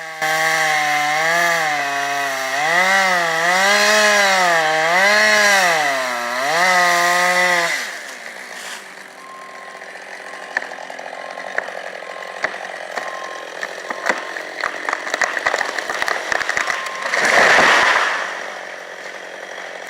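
Chainsaw running in a cut, its engine pitch rising and falling again and again for about eight seconds, then dropping away. Quieter crackling and snapping follows, with a loud swell of noise near the end.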